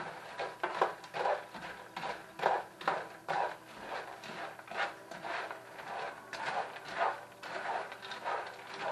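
Bread croutons being stirred in a nonstick frying pan with a nylon slotted spoon: repeated scraping and rustling strokes, about two a second.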